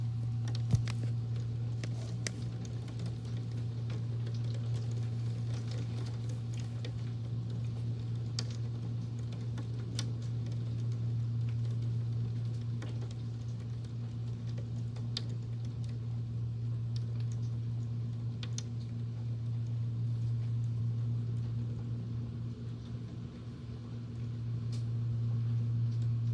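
Fan running with a steady low hum, over rain with scattered sharp ticks of drops striking a surface at irregular intervals.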